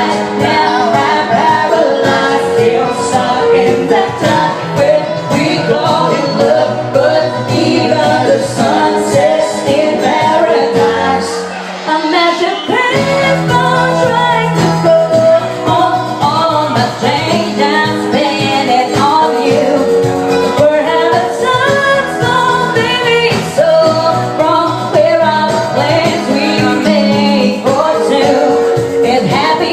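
A woman singing a pop song over a backing track. The bass drops out for a couple of seconds about halfway through, then comes back in.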